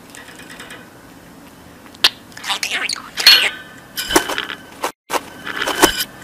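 Pet budgerigar chattering in quick, scratchy, speech-like bursts after about two seconds of faint hiss, with a brief gap about five seconds in; the later part is the recording played in reverse.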